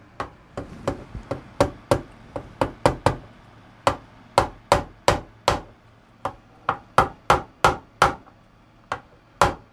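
Brass-faced fret hammer tapping a new fret into its glued slot on a 1978 Gibson Les Paul Custom's fretboard, seating the fret's ends. The strikes are light, sharp taps in short runs with brief pauses, about two to three a second.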